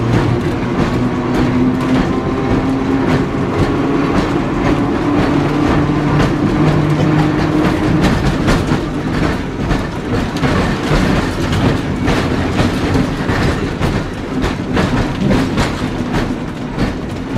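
A 1928–29 Porto-built, Brill-type vintage streetcar running along its track, heard from inside the wooden car: wheels rolling and clacking on the rails and the body rattling. A steady hum runs through the first half and drops away about eight seconds in, leaving rumbling and sharp clicks.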